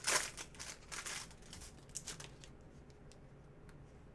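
Crinkling and rustling of card packaging and trading cards being handled, a quick run of crackles over the first two seconds, then only a few faint ticks.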